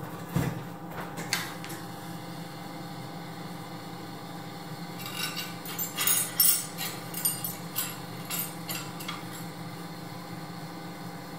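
Glassblower's bench torch running with a steady rushing noise while borosilicate glass is heated, with a knock about half a second in and a run of light clinking taps in the middle.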